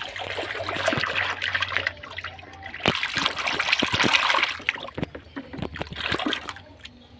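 Soapy water splashing and sloshing in a plastic basin as a hand rubs a plastic toy underwater, with quick splashy clicks; loudest in the middle, dying down near the end.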